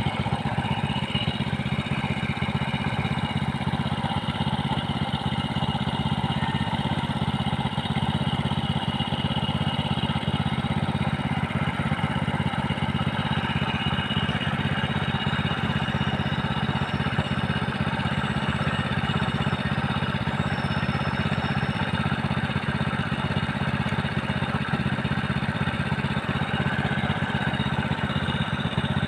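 Motorcycle engine running steadily at low revs close by, with an even, fast low pulsing and no revving.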